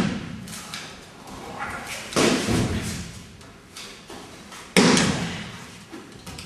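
Aikido breakfalls: bodies landing heavily on the mat after throws. There are two loud slams about two and a half seconds apart, with lighter thuds and rustling from movement between them.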